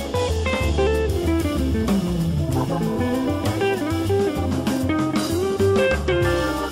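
Instrumental background music: a plucked guitar melody over bass and a drum kit.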